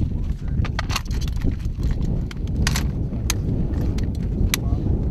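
Sharp metal clicks and clacks of a belt-fed machine gun's parts being handled and fitted, about ten irregular clicks over a steady low rumble.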